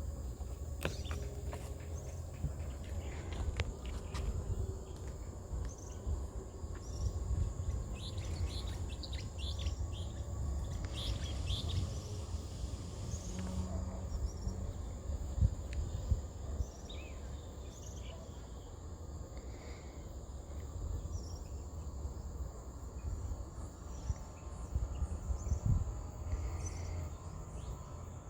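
Mangrove ambience: a steady high insect drone with scattered short bird chirps, over a constant low rumble.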